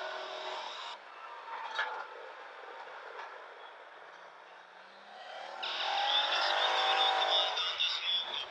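CFMOTO CForce 1000 ATV's V-twin engine with an aftermarket exhaust, running low and quietly at first. About five seconds in it accelerates and gets louder, its pitch rising.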